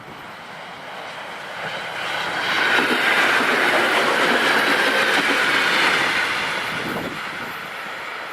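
PKP class EN57 electric multiple unit running past on the track, wheels on rail, growing louder, at its loudest for a few seconds in the middle, then fading as it moves away.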